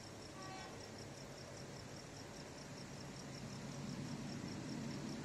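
Crickets chirping in a high, evenly pulsing trill, faint, with a low rumble that swells in the second half.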